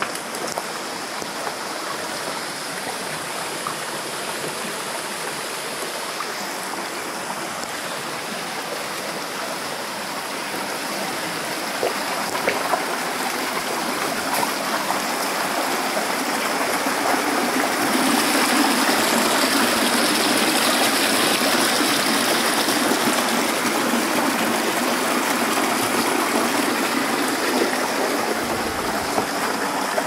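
Steady rushing water of a rocky mountain stream, getting louder about halfway through and then holding steady.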